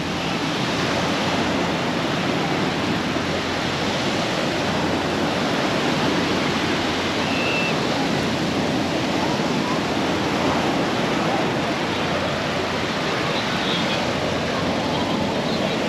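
Small ocean surf washing onto a sandy beach: a steady rushing hiss. Faint voices of beachgoers can be heard, mostly near the end.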